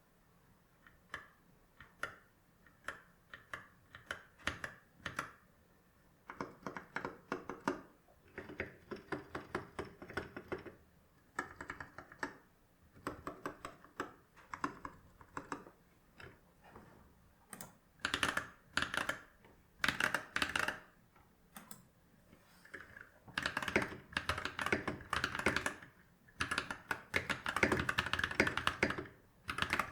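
Typing on a NovelKeys NK65 Entry mechanical keyboard with stock Glorious Holy Panda tactile switches and PBT keycaps. It starts with single keystrokes about once a second, then moves to bursts of fast typing with short pauses, which get denser and louder in the second half.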